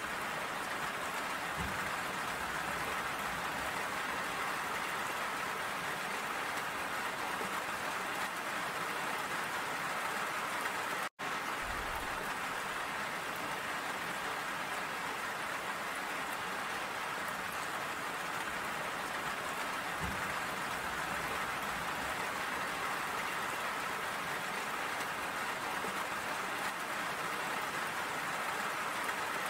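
Steady rain falling, an even hiss of drops with no let-up. It cuts out for an instant about eleven seconds in, then carries on unchanged.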